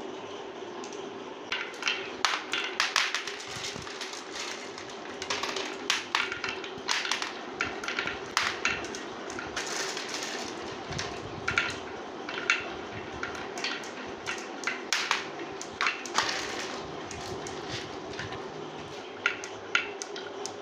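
Glass marbles rolling down a wooden slope with a wavy groove, clicking sharply against each other and the wood in irregular runs as they bunch up in the curves. A steady low hum lies underneath.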